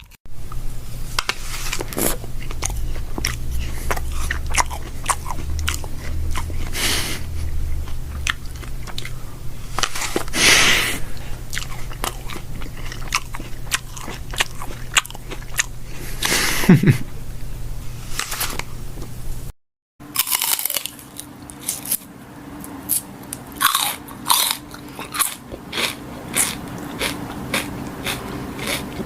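Crunchy biting and chewing: a dense run of crackling crunches, then, after a brief break about two-thirds in, a second take with sparser, sharper crunches.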